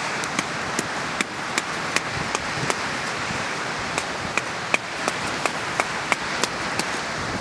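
Steady wind and surf noise, with a run of sharp, evenly spaced clicks, about two or three a second, pausing briefly partway through.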